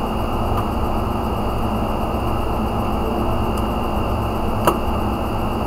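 Steady hiss and low hum of room noise, with a single sharp click about three-quarters of the way through.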